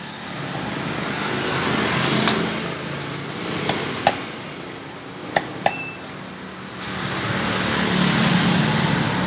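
A large knife knocking against a wooden chopping block five times as catfish are cut up, with passing road traffic rising and fading behind it.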